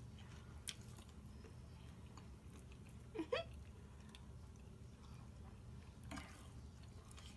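Faint chewing and mouth sounds of people eating chicken wings, with a few small clicks and one short vocal sound, rising in pitch, about three seconds in.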